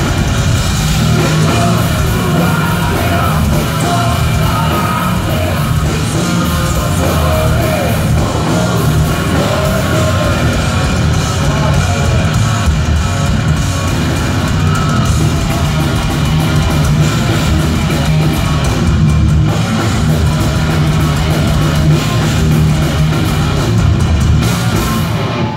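A thrash metal band playing live at full volume: electric guitars, bass guitar and a drum kit through the venue's sound system, heard from the crowd.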